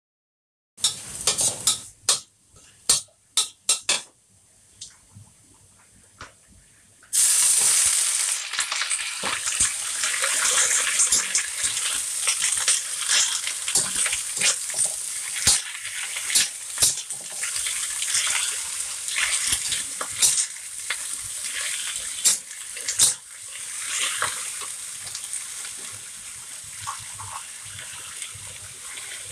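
Bok choy stir-frying in a stainless steel wok: a few sharp clinks of the metal spatula on the wok, then a sudden loud sizzle about seven seconds in that carries on with the spatula scraping and tapping the wok, slowly dying down.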